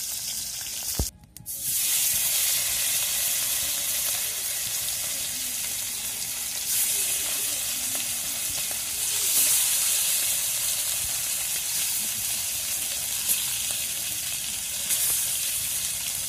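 Nola fish shallow-frying in hot oil in an iron karai: a steady sizzle with a few slightly louder spells. The sizzle drops out briefly about a second in.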